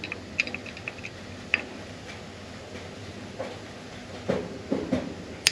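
Small metal tool clicks and taps against a B&G pump's cast-iron bearing bracket while an Allen set screw is worked on: a quick run of light ticks near the start, a single click a second later, a few dull knocks toward the end and one sharp click at the very end.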